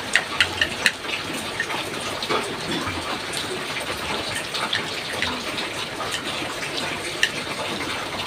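Close-miked wet eating sounds of pancit canton noodles being chewed, with a quick run of small clicks in the first second and a few more later.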